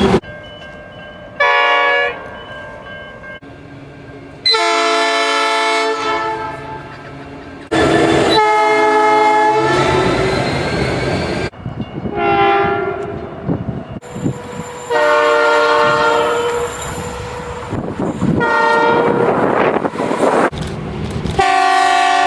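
Train horns: about seven separate horn blasts, each steady and a second or two long, cut sharply from one clip to the next, with the rumble of a passing train in the gaps.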